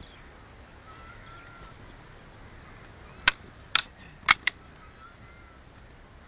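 Four sharp wooden clacks in quick succession, about three seconds in: gatka fighting sticks striking each other and the small hand shields during sparring.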